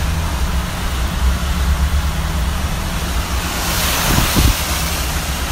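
Car driving through a flooded street: the car's steady low rumble with the hiss of tyres through standing water, swelling into a louder wash of spray about four seconds in.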